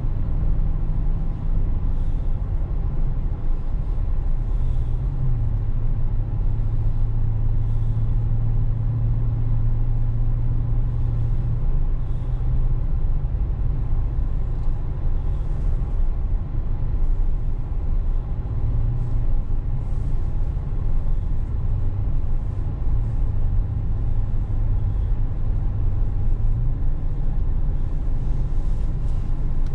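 Road and engine noise inside the cabin of a moving car: a steady low rumble, with a low hum that swells twice for several seconds at a time.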